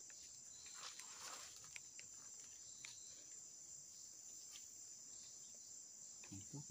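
Faint, steady high-pitched insect buzz, like crickets, with a few soft clicks and rustles of movement through vegetation.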